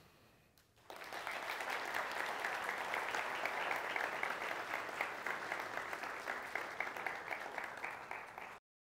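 Large audience in a lecture hall applauding, starting about a second in and cut off abruptly near the end.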